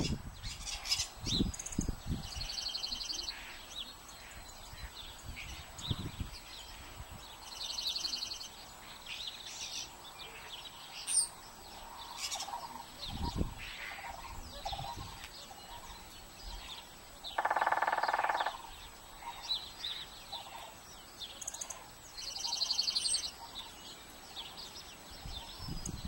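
Small songbirds calling outdoors: a buzzy, high trilled phrase about a second long comes three times, among scattered short chirps. A louder, lower-pitched call lasting about a second sounds about two-thirds of the way through.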